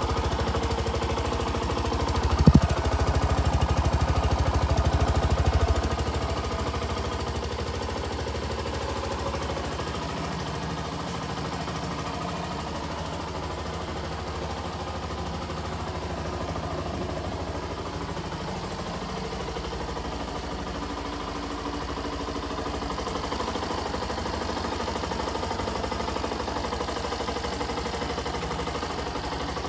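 2017 Yamaha YS125's air-cooled single-cylinder four-stroke engine idling steadily, louder for the first six seconds or so and then quieter. A single sharp click comes about two and a half seconds in.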